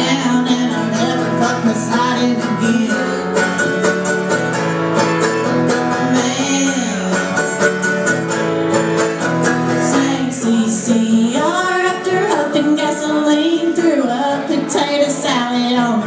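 Live acoustic duo: mandolin and acoustic guitar strummed together, with female singing.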